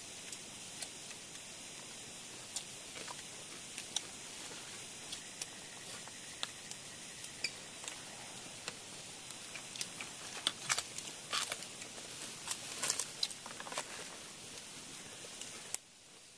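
Scattered faint clicks and small taps, thickest about ten to fourteen seconds in, over a steady hiss that cuts off suddenly near the end.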